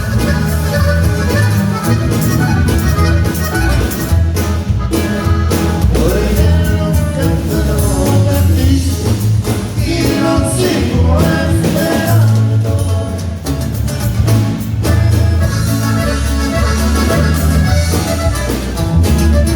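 Norteño band music: an accordion melody over a pulsing bass line.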